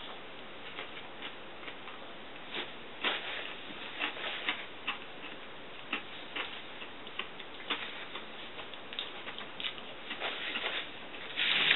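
Eating sounds: irregular soft clicks and smacks of chewing, and fingers breaking up crumbly cake, growing more frequent after a couple of seconds. Near the end there is a short, louder rustle of a paper napkin being handled.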